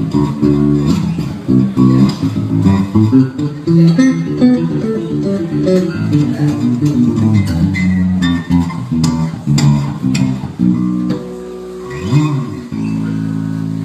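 Electric bass guitar played solo in quick runs of low notes. Near the end it holds a chord, slides one note up and back down, then lets notes ring steadily.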